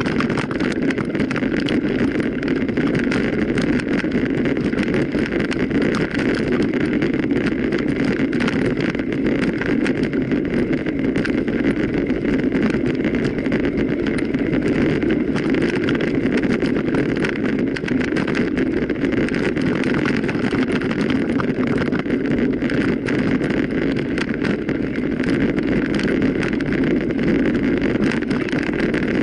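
A mountain bike ridden over rough ground: steady wind noise on the microphone over the rumble of the tyres, with constant small rattles and clicks.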